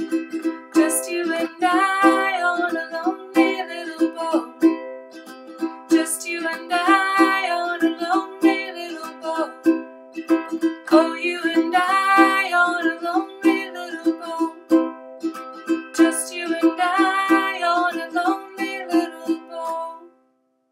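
Ukulele strummed in a steady rhythm, with a wordless vocal melody rising and falling over it in four phrases. The playing stops near the end.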